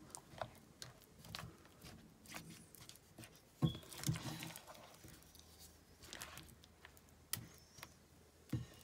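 Silicone spatula mixing potato slices through thick gram-flour batter in a glass bowl: irregular wet, sticky clicks and taps, with a couple of louder knocks of the spatula about halfway through and one near the end.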